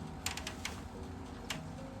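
Several sharp clicks, a quick cluster near the start and a single one about one and a half seconds in, over a low steady hum.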